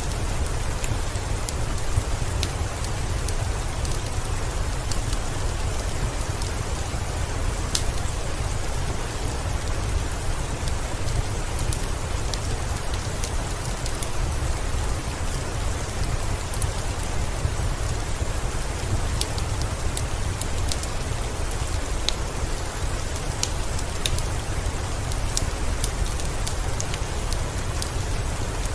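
Steady heavy rain with a deep low rumble underneath, dotted with scattered sharp crackles and pops of a wood fire.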